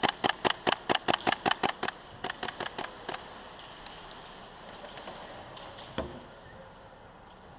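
Rapid airsoft gunfire: a string of sharp shots about five a second, then a fainter, shorter string about two seconds in. A single knock comes about six seconds in.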